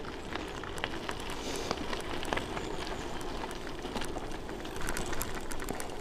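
Ride noise from an e-bike with no suspension on a bumpy dirt track: a steady rumble of tyres rolling on the dirt, broken by many small clicks and rattles from the bike.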